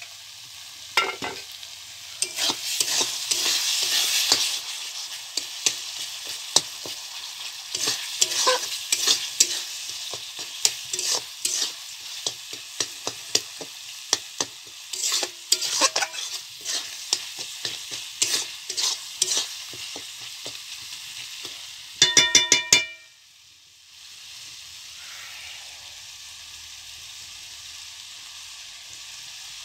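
Masala sizzling as it fries in a metal kadhai, with a spoon scraping and knocking against the pan as it is stirred. About 22 seconds in there is a quick run of ringing metal clinks, then steady sizzling with no stirring.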